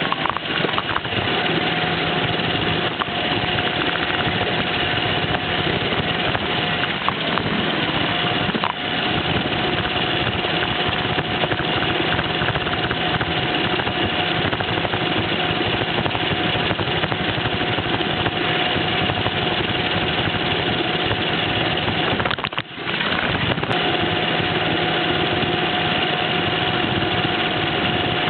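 Roomba robot vacuum running: a steady whir of its motors and brushes with a few steady tones, broken by a few brief knocks and one short dip in level about three quarters of the way through.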